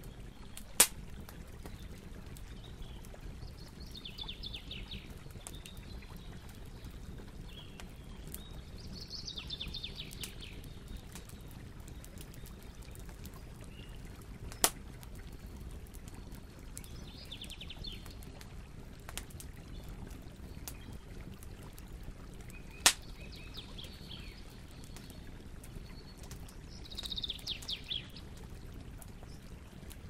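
A bonfire burning with a steady low rush and three sharp, loud pops: about a second in, midway, and about three quarters through. Birds chirp in short, quick trills every few seconds.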